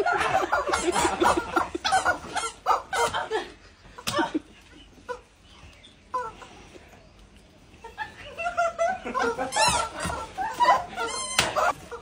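A group of women laughing hard, with several sharp smacks in the first few seconds. After a quieter stretch, a squeaky rubber screaming chicken squeals about ten seconds in, followed by more laughter.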